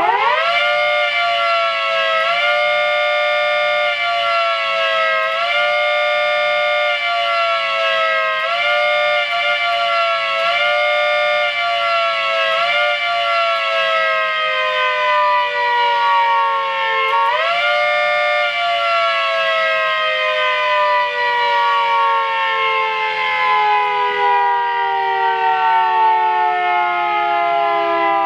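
One-third-scale 3T22 model siren run by hand in a fast wail, sounding a chord of several tones. It winds up sharply, then its pitch swoops up and sags back every two to three seconds. About eighteen seconds in, it is let go and winds down in one long, slow falling wail.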